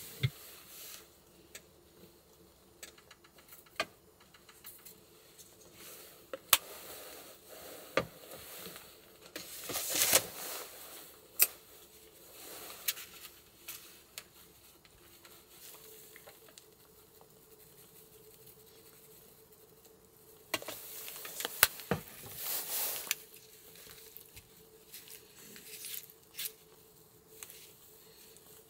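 Small handling noises: scattered sharp clicks and taps, with two short louder rustling spells, one about ten seconds in and one past the twenty-second mark, over a faint steady hum.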